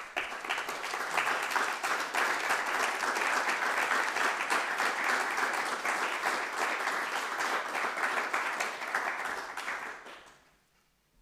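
Audience applauding steadily, dying away about ten seconds in.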